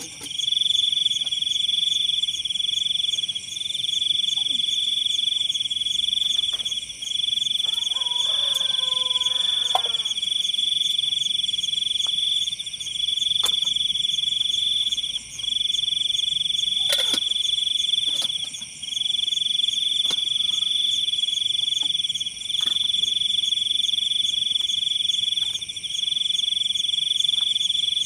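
Insects trilling in a loud, steady, high-pitched chorus, in phrases of two to three seconds broken by short pauses. A brief faint call with several pitches comes about eight seconds in.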